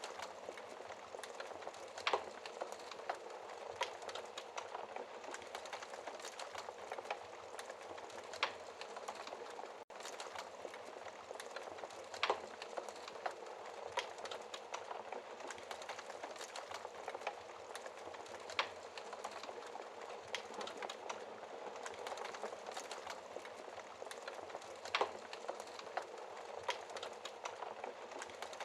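Wood fire crackling in a fireplace: a steady soft hiss with constant small snaps and a few louder pops spread through, and a momentary dropout about ten seconds in.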